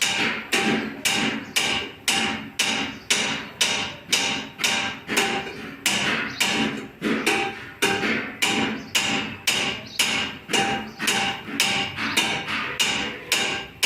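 A hammer striking copper in rapid, even blows, about three a second, each with a short metallic ring.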